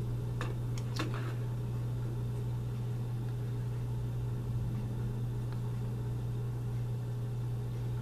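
A steady low hum at one pitch and an even level, with a couple of faint light ticks within the first second or so.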